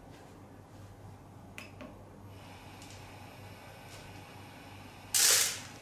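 Copley FR-1000 tablet friability tester starting its run with the drum turning at 25 rpm. There is a faint click, then a quiet running hiss, and about five seconds in a short, loud clattering rush as the tablets tumble and drop inside the acrylic drum once per turn.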